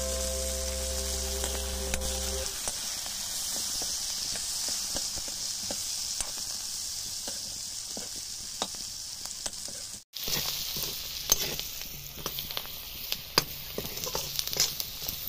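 Pork pieces frying in oil in a metal pan, sizzling steadily while a steel spoon stirs them, scraping and clinking against the pan. The sound cuts out briefly about ten seconds in.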